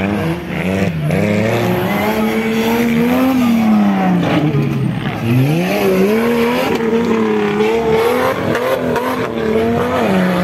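Off-road competition buggy's engine revving up and down under changing throttle. The pitch climbs, drops sharply about five seconds in, then climbs again and wavers.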